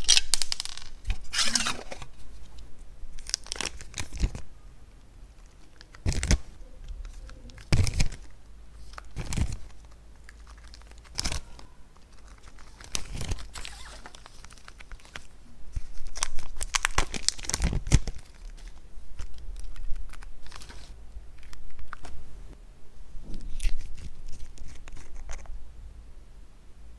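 Hands handling craft supplies over glass dishes: a dozen or so sharp knocks and taps as clay blocks and containers are set down, between stretches of crinkling and tearing.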